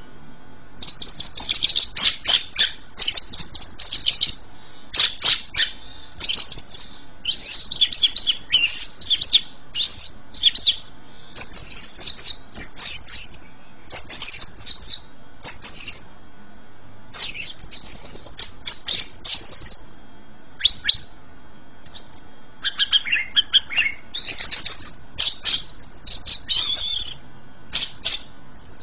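Caged cucak ijo (green leafbird) singing hard: long runs of rapid, high chirping phrases, broken by short pauses.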